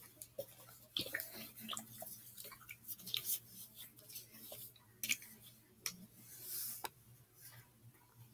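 Irregular small clicks and taps from objects being handled, with a faint steady low hum underneath.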